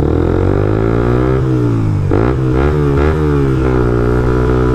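Suzuki GSX-R125's single-cylinder four-stroke engine running under way. Its note rises, dips sharply about two seconds in, then picks up again and holds steady.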